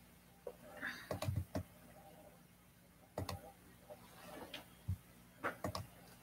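Computer keyboard being typed on: irregular clicks and taps, some in quick little runs, over a faint steady electrical hum.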